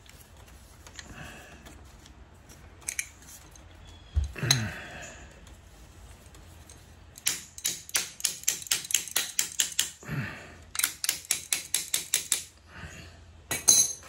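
Ratchet wrench clicking in two quick, even runs of about seven clicks a second, the first starting about halfway through and the second following a second later, with a sharper metallic clatter near the end.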